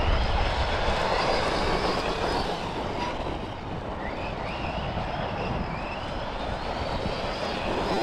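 Losi Lasernut U4 1/10-scale 4WD brushless RC rock racer driving: a steady rattling of tyres and drivetrain over the ground, with the brushless motor's whine rising in short glides a few times around the middle.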